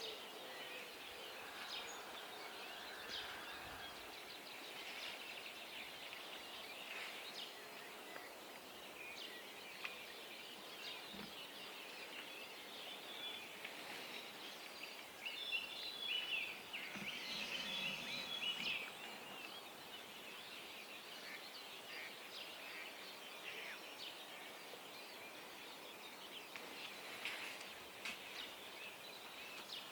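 Dawn chorus of small songbirds by a river: many short chirps and calls, with a louder burst of song about halfway through.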